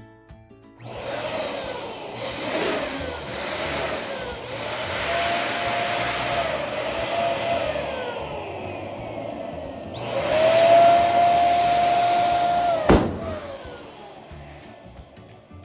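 Electric balloon pump running in several stretches, a steady whine and rush of air as balloons are inflated. Near the end a balloon bursts with a single sharp bang, and the pump then winds down.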